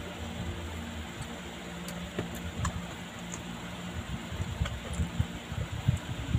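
Steady low hum under scattered light clicks and soft low thumps, the small handling and mouth noises of people eating pizza at a table; the thumps come more often in the second half.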